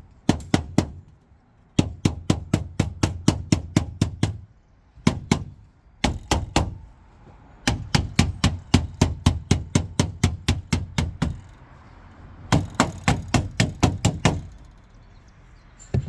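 Quick runs of hammer taps on a copper roof seam, about five strikes a second, in several bursts with short pauses between them, closing the seam down.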